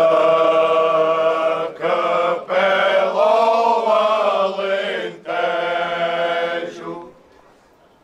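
A choir of low voices singing a slow Portuguese folk song without words at this point, in long drawn-out held notes. It comes in four sustained phrases with brief breaks and fades away near the end.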